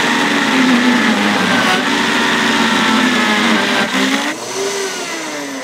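Vitamix blender running loud on high, crushing ice into a thick ice-cream mix as a tamper presses the cubes down into the blades. A little over four seconds in, the motor is switched off and spins down.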